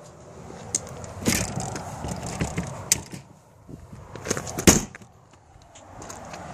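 Footsteps crunching on gravel at walking pace, mixed with a few sharper knocks; the loudest knock comes nearly five seconds in.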